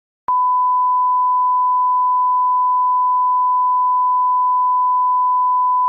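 TV colour-bar test tone: a single steady beep on one unchanging pitch, starting a moment in and held without a break.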